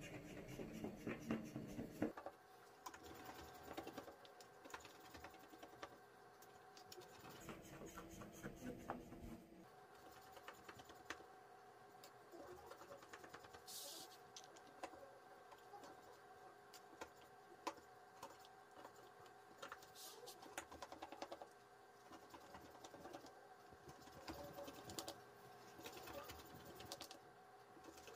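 A knife scoring layered buttered yufka (phyllo) for baklava: a faint, quick patter of small crackling ticks as the blade cuts through the pastry sheets.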